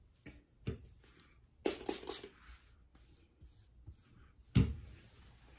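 Hands handling and twisting locs, giving a few short scratchy rustles, with one sharp thump about four and a half seconds in, the loudest sound.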